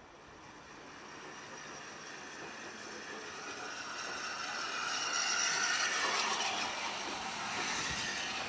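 LNER D49 class 4-4-0 steam locomotive passing close below, with a hiss of steam that builds steadily, is loudest about five to six seconds in and swells again near the end.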